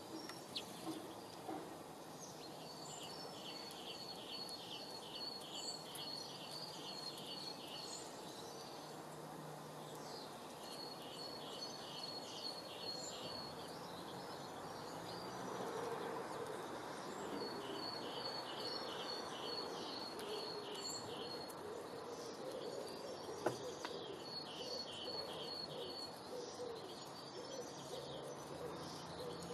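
Outdoor birdsong: a small songbird repeats a regular series of high, evenly spaced notes in bouts of a few seconds, about five times, over steady background noise. A single sharp click sounds about two-thirds of the way through.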